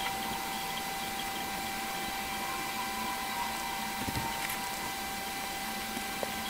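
Steady electrical hiss with several faint, constant high whine tones, like a recording's noise floor from a computer setup, with a couple of faint clicks.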